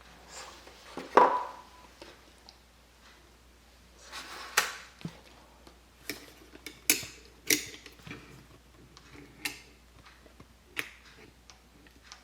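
Microscope and glass slides being handled: irregular small clicks and taps, the loudest a short ringing clink about a second in.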